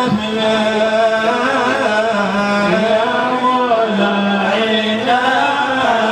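A solo male voice singing a slow, unaccompanied devotional chant, with long held notes that bend and turn in pitch.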